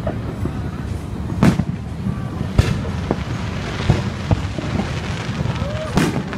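Fireworks exploding overhead: separate sharp bangs about a second and a half in, just after two and a half seconds, and at about six seconds, with smaller pops between.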